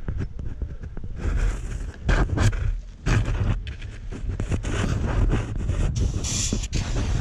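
Close helmet-camera handling noise: rustling, scraping and knocking of the protective veil and gear against the camera over a low rumble, the sounds of working on a roof. About six seconds in comes a short hiss from an aerosol insecticide can being sprayed at a wasp nest.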